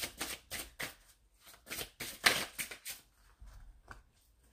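Deck of oracle cards being shuffled by hand: a run of quick papery flicks and slides, loudest a little past two seconds in, fading to a few faint ticks near the end.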